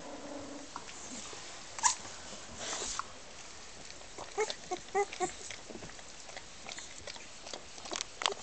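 Puppies under three weeks old squeaking and whimpering: a short whine at the start, a sharp squeak about two seconds in, and a run of short high squeaks between four and five seconds in. Rustling and small scratches come from the puppies moving on the fleece bedding.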